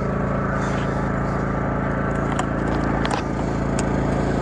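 Small engine running steadily at an even speed, with a few light clicks and knocks over it.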